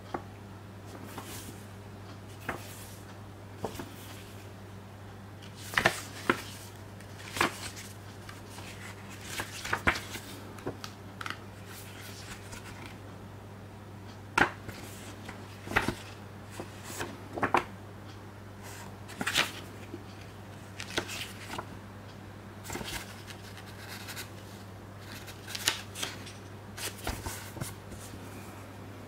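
Pages of a small printed paper booklet being turned one after another, each turn a short papery rustle, irregularly spaced, over a steady low hum.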